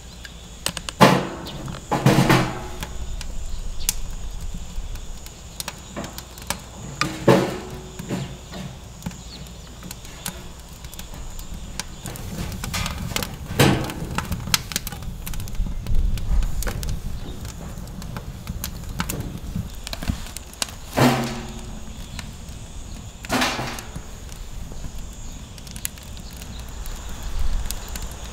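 Split firewood logs dropped into a burning stainless-steel smokeless fire pit, knocking against the wood and metal: about six sharp knocks spread out, two close together near the start.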